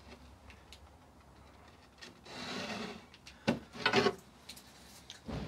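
A marker rubbing along the edge of a steel square as a line is drawn on a board, one scratchy stroke a little over two seconds in. Then a couple of sharp knocks and a dull thump near the end as the square is handled against the board.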